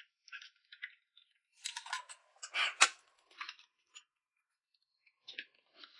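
Table eating sounds: a spoon stirring and clinking in a glass mug of corn porridge, with short sips and mouth noises. They come scattered, bunching up in the middle with one sharp clink a little under three seconds in.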